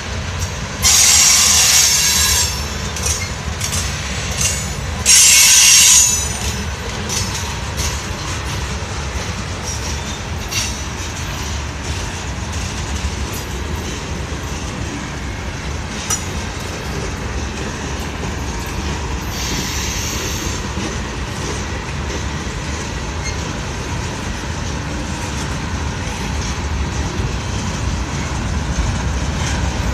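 Norfolk Southern freight cars rolling past close by, a steady rumble of wheels on rail. Two loud, high-pitched bursts of noise come about a second in and about five seconds in, each lasting a second or so.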